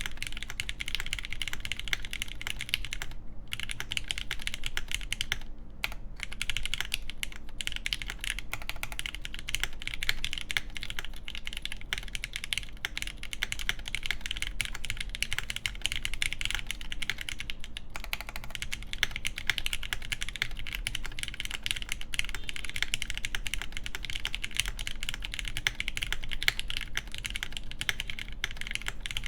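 Fast, continuous typing on a custom JJW Derivative mechanical keyboard with lubed Gateron Yellow linear switches in milky housings, an aluminum half plate and GMK keycaps, with short pauses about three and six seconds in.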